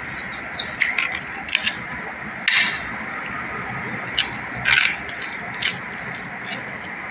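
Crisp appalam (fried papad) crunching in about seven short, irregular crackly bursts, as it is broken and eaten, over a steady background hiss.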